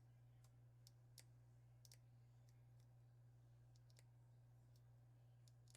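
Near silence with faint, irregularly spaced small clicks of small metal lock parts (the disassembled lock's sidebar pins) being handled, over a steady low hum.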